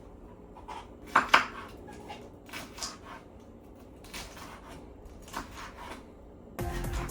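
Kitchenware being handled: scattered knocks and clinks of dishes and utensils, the loudest two close together about a second in. Background music starts suddenly near the end.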